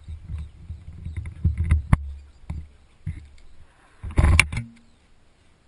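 Handling noise on a GoPro camera as it is moved around: low rumbling and rubbing with scattered knocks, and a loud rustling scrape about four seconds in.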